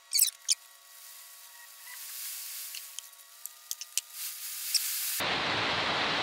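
Epoxy resin being poured from a plastic mixing bucket onto a wood slab, with two sharp scrapes near the start and faint scraping and scattered ticks after them. About five seconds in, a steady rushing hiss starts abruptly: a tool blowing over the fresh epoxy to bring the bubbles out.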